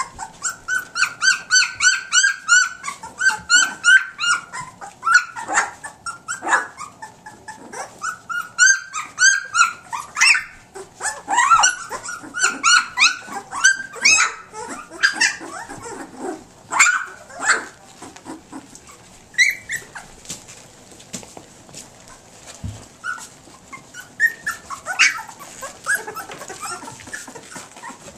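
A litter of two-week-old standard poodle puppies squealing and whining: many short high-pitched cries in quick succession, several a second at first, thinning out in the second half.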